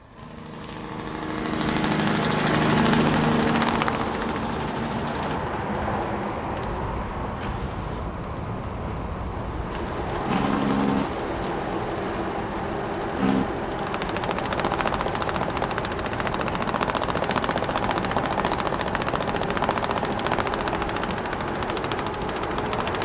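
Large truck driving, its loose cargo straps flapping rapidly in the wind in a fast rattling flutter over engine and road noise. The sound fades in at the start, with the engine tone strongest in the first few seconds.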